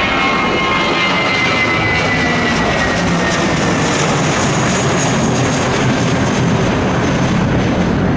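Twin jet engines of an Airbus A320-family airliner at takeoff power as it climbs away after lift-off: a loud, steady roar. A whine falls slowly in pitch over the first few seconds as the plane passes, and a thin high whistle comes in about four seconds in.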